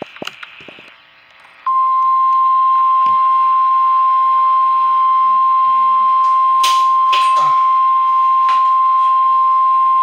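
A single steady alert tone near 1 kHz starts suddenly about two seconds in and holds loud and unbroken to the end. This is typical of the NOAA Weather Radio 1050 Hz warning alarm tone that comes before an emergency weather alert. Faint clicks and muffled voices sit underneath.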